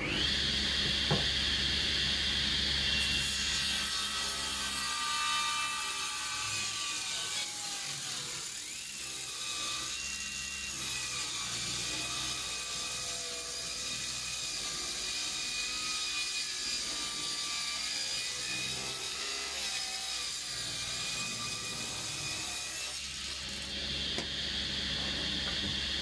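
Table saw running and ripping a long Sapele board along the fence. The blade's steady whine drops slightly in pitch under load from a few seconds in until about three seconds before the end, when it rises back as the cut finishes.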